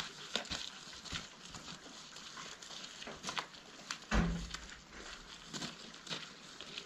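Faint scattered clicks and taps, with one soft low thump about four seconds in.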